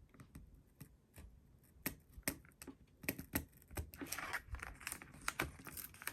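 Paper and craft tools handled on a sticky cutting mat: scattered light clicks and taps, getting busier partway through, with a paper rustle about four seconds in.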